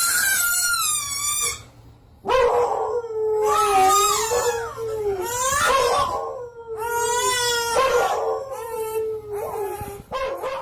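A dog howling in long, wavering calls, several in a row, with a short pause about two seconds in.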